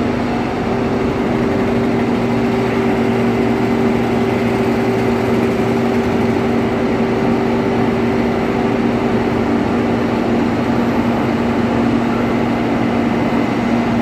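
Heavy diesel engines of a tipper truck and a Vögele Super 1400 asphalt paver running steadily together as the truck tips asphalt into the paver. The sound carries a steady two-tone hum, and the higher tone fades out about ten seconds in.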